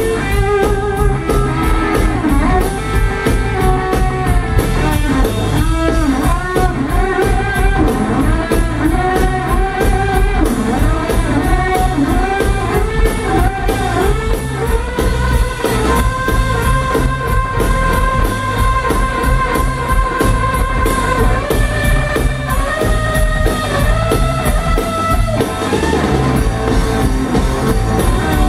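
Live blues trio playing instrumentally: an electric guitar plays lead lines with bent notes and a long held note about halfway through, over electric bass and a drum kit keeping a steady beat.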